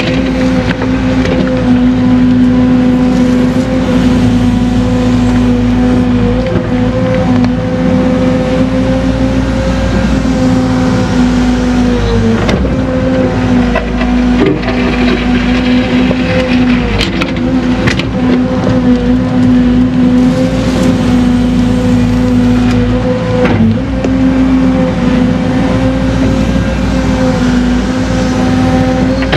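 Excavator's diesel engine and hydraulics running steadily under load, heard from inside the cab as a steady hum that dips briefly a few times while the bucket digs. A few sharp knocks come about halfway through.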